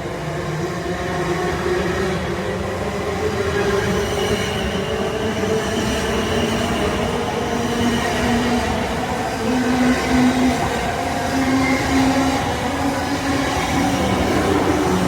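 Class 444 Desiro electric multiple unit running on the rails, a steady rumble with an electric hum whose pitch steps up and down.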